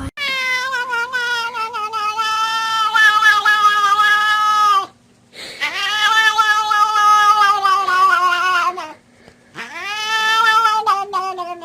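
A cat yowling: three long, drawn-out calls with short breaks between them, each held at a steady pitch and dropping slightly as it ends.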